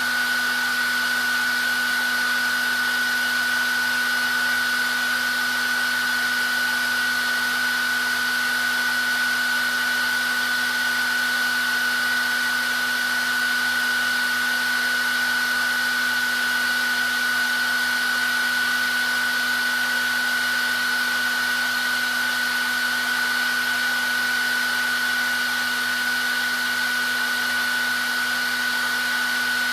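Hair dryer running steadily: an even rush of air with a constant high whine and a lower hum from its motor and fan.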